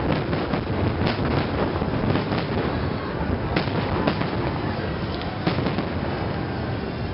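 Fireworks exploding continuously: a dense run of booming shell bursts and crackling with no pause between them.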